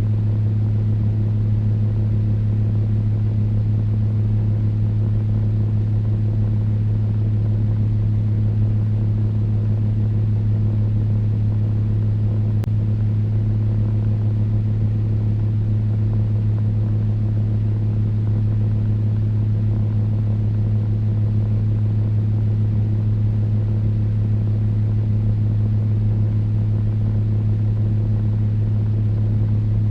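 Electric fan running steadily: an even low hum over a soft rush of moving air.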